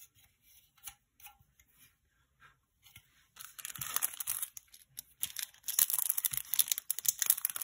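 Crinkly packaging being handled and torn open: a few light taps and clicks at first, then from about halfway a dense rustling and crinkling that grows louder near the end.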